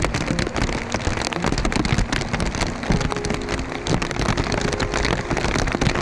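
Heavy downpour of rain: a dense, steady hiss full of sharp, close drop impacts pattering on surfaces.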